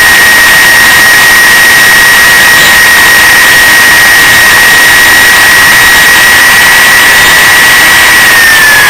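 DUMORE toolpost grinder running at full speed with a loud, steady high whine over a rushing hiss while its small wheel is dressed with a diamond nib. Near the end the whine starts to fall in pitch as the grinder winds down.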